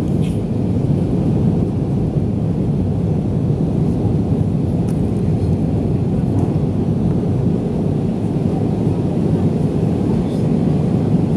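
Steady low rumble inside the cabin of an Airbus A320 descending on approach for landing: engine and airflow noise, level and unchanging.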